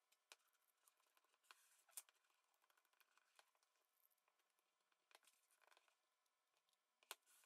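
Near silence, broken by faint scattered clicks and rustling as small metal clamps are handled and fitted onto a smartphone. The sharpest clicks come about two seconds in and near the end.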